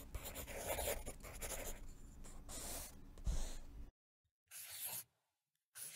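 Pencil scratching on paper in continuous sketching strokes for about four seconds. After a short pause come two brief strokes, the second near the end.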